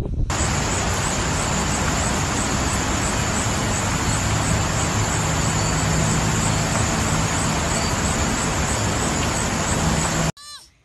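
A steady, loud, even noise with no distinct tones, like a constant rush of traffic or wind, stops abruptly near the end. It is followed by a short, high squeaky animal call.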